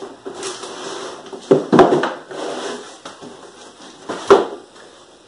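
Cardboard boxes of a wiring harness kit being handled and set down, with a cluster of knocks about one and a half seconds in and another single knock a little after four seconds.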